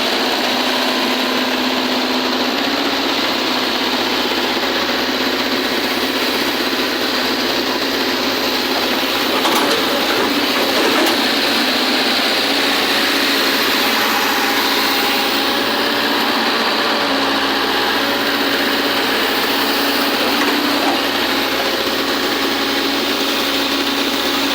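Volvo EC210D excavator's diesel engine running steadily at idle. It is running again after a faulty fuel sensor, the cause of its no-start, was replaced.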